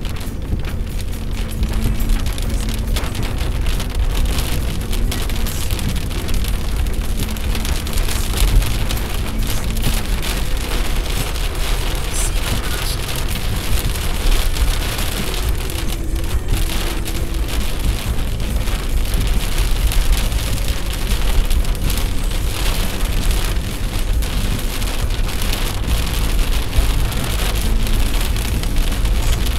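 Heavy rain pattering on a surface as a dense, steady hiss of drops, over a continuous low rumble.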